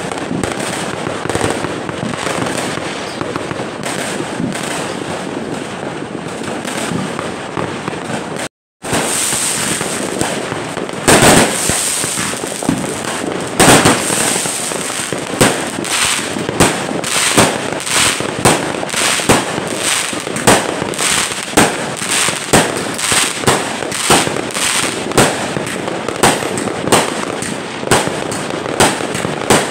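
Fireworks: a dense, continuous crackle of many bursts, then, after a brief dropout about nine seconds in, a nearby repeating firework launching shots in a steady series of loud bangs, roughly one a second.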